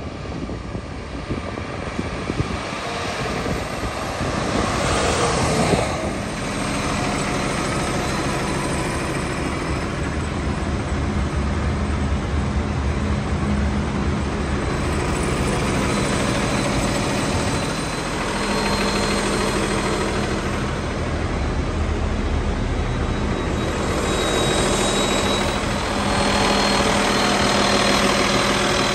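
Diesel engine of a 2011 Autocar Xpeditor garbage truck, a Cummins ISC 8.3-litre inline six. The truck comes up and passes close about five seconds in, then the engine runs on with a steady note.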